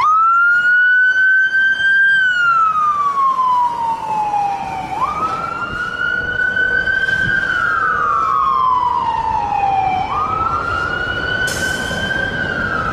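Fire truck siren wailing. The pitch climbs quickly, holds, then slides slowly down, in about three slow cycles roughly five seconds apart.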